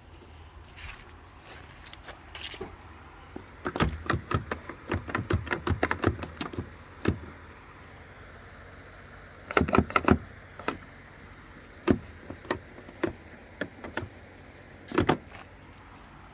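Rummaging through loose metal items: bursts of rapid clinks and rattles, a long run of them a few seconds in, another cluster about ten seconds in and a few single clicks near the end.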